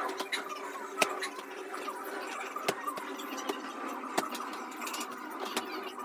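Bedding being shaken and tossed while a bed is made: cloth rustling and flapping, with a few sharp knocks, the loudest about a second in, over a steady background hum.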